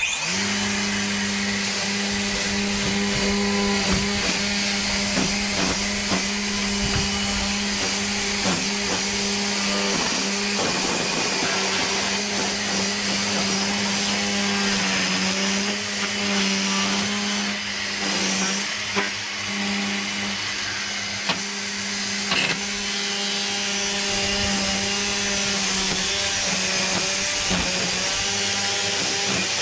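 DeWalt 20V MAX brushless cordless string trimmer starting up and running at high speed with a steady motor whine, its spinning line cutting weeds with frequent ticks and slaps. The motor's pitch dips briefly a few times.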